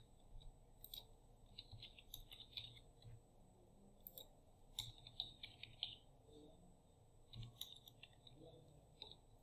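Faint, irregular clicks of a computer keyboard being typed on, with a few mouse clicks, as a password and a phone number are entered.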